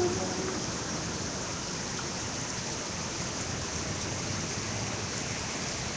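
Steady rain falling on a wet street, an even hiss.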